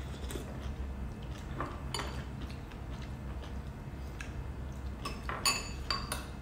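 Metal spoons clinking and scraping against ceramic soup bowls while eating soup: a few scattered clinks, coming closer together near the end, over a steady low hum.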